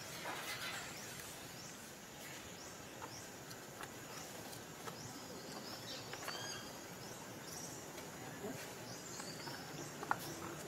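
Outdoor ambience: a steady hiss with a run of short, high chirps, each falling in pitch, coming every half second or so.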